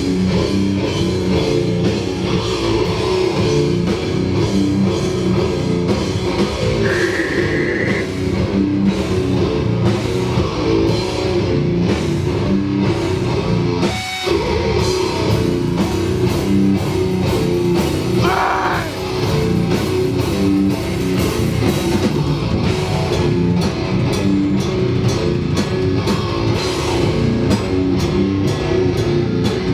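A band playing heavy music live on distorted electric guitar and drum kit, loud and dense, with a momentary break about halfway through.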